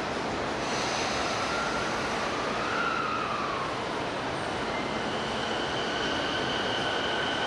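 Toei 10-300 series subway train at the platform starting to pull away, over a steady rushing station hiss. About two seconds in a whine rises and falls, and from about five seconds a steady two-pitch electric whine from the train's traction equipment sets in as it begins moving.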